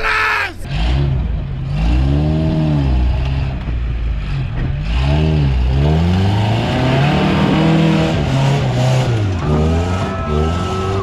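Lifted Toyota pickup's engine revving hard under load as the truck claws up a steep dirt hill, its pitch swelling up and falling back again and again.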